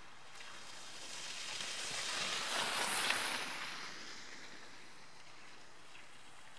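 Skis hissing and scraping over packed snow as a skijorer and dog pass close by, swelling to a peak about three seconds in and then fading.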